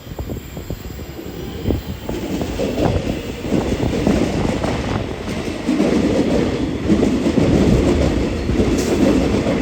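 V/Line VLocity diesel multiple unit departing, its wheels clicking over the rail joints and the running noise growing steadily louder as the train moves past.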